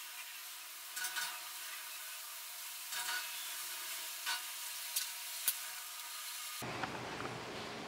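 Small stepper-motor pen plotter writing letters on a roll of masking tape: a steady scratchy hiss of the marker tip on the tape with faint motor whine and a few sharp clicks. Music comes in near the end.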